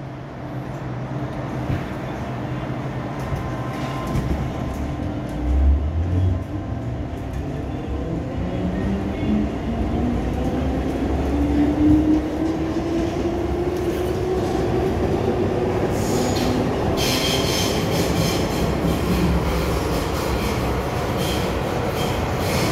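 MTR Island Line M-Train pulling away from a station and accelerating into the tunnel: a low thump as it gets moving, then a traction motor whine that climbs steadily in pitch as speed builds. From about two-thirds of the way in, a high hiss and ringing of the wheels on the rails joins the running noise.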